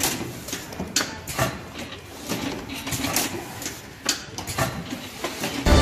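Sunpack WK04CA-MP banding machine working through stacks of toothpaste boxes: irregular sharp clicks and clacks as it wraps, seals and cuts the bands, over the running of the machine and its conveyor.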